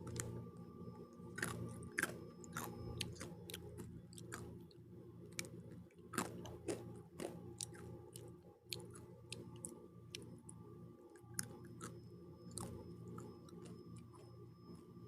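Close-up chewing and biting of crunchy pizza crust, with irregular sharp crunches and mouth clicks.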